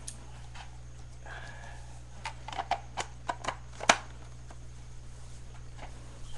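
A hand tapping and clicking on a clear plastic hamster enclosure: a quick run of light clicks starting about two seconds in, ending in one sharper knock near four seconds.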